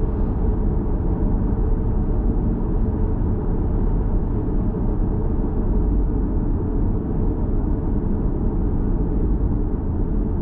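Steady low rumble of a 2011 Lexus GS450h hybrid sedan on the move: even tyre and road noise that keeps the same level throughout.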